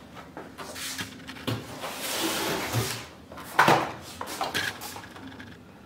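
Cardboard boxes of a ring light and a tripod being handled and shifted: a scraping rustle of cardboard about two seconds in, and a few knocks, the loudest about three and a half seconds in.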